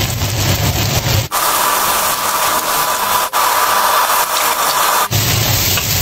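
Bamboo shoots, meat and chillies sizzling loudly in hot oil in a wok as they are stir-fried. The sound changes abruptly about a second in, at about three seconds and near five seconds, where the shots are cut together.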